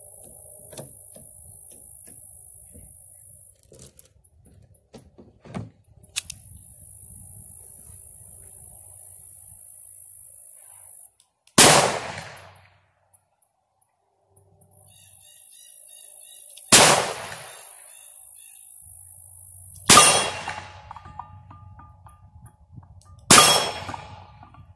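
Four shots from a Smith & Wesson .38 Special revolver. The first comes about halfway in and the rest follow three to five seconds apart, each a sharp crack with a brief ringing tail.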